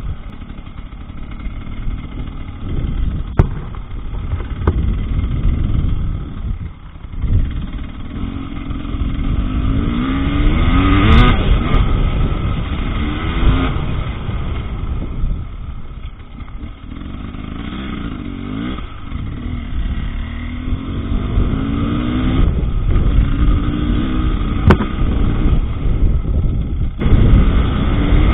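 Husqvarna TE300 two-stroke enduro motorcycle being ridden on a dirt track, the engine revving up and easing off again and again as the throttle is worked. It drops away briefly twice, about seven and sixteen seconds in.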